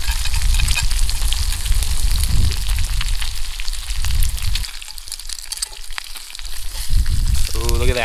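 Bacon frying, a dense sizzle and crackle as it crisps. A low rumble of wind on the microphone runs under it and drops away for about two seconds past the middle.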